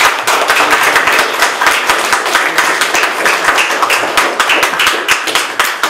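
Audience applauding: many hands clapping together at the close of a talk.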